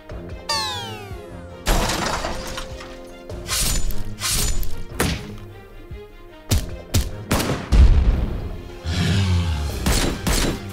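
Cartoon fight sound effects over background music: a falling electronic zap early on, then a string of hits and crashes, with heavy low booms near the end.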